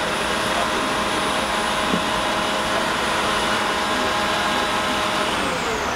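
Frozen-drink machine's blender motor running steadily, blending a frozen margarita, then switching off near the end and winding down in pitch.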